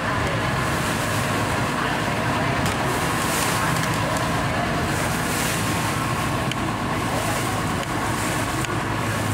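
River ferry's engine running steadily as the boat moves along, with water rushing past the hull and a steady hiss of wind and spray.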